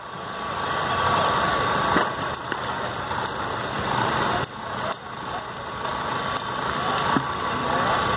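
Two sharp knocks about five seconds apart, a cricket ball striking the bat during net practice, over a steady rumbling background.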